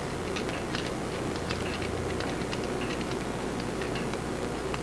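Faint, irregular clicks of a clock movement's click (pawl) riding over the mainspring's ratchet wheel as the mainspring is wound up with a let-down wrench, so that a mainspring clamp can be fitted. A steady low hum runs underneath.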